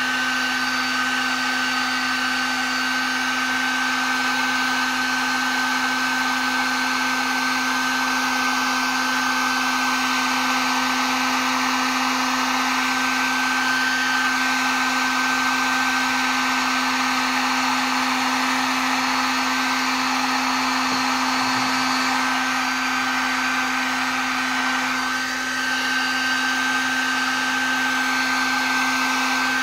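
Electric heat gun running continuously on high, its fan giving a steady rush of air with a constant low hum and a thin high whine.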